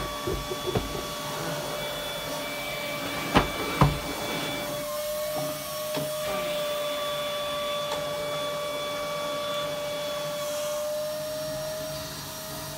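Canister vacuum cleaner running with a steady motor whine as it is pushed over the floor. Two sharp knocks come about three and a half and four seconds in.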